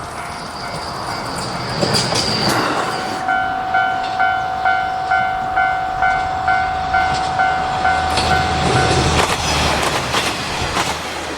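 A train running past, its wheels clicking over rail joints and a low rumble building in the second half. Over it a level-crossing alarm rings in even strikes, about two a second, for several seconds before stopping.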